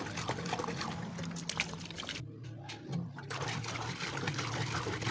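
Dirty, rust-laden electrolysis solution pouring out of a Honda CG125 motorcycle petrol tank's filler opening and splashing onto a concrete floor as the tank is shaken to drain it. The pour breaks off for about a second a little past two seconds in, then resumes.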